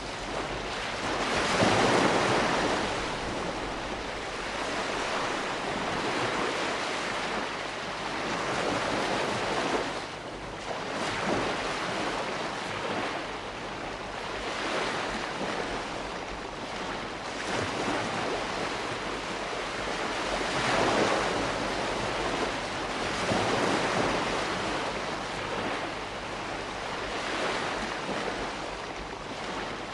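Calm sea washing ashore: gentle waves breaking and drawing back in a steady wash, swelling every few seconds, with a light hiss of wind.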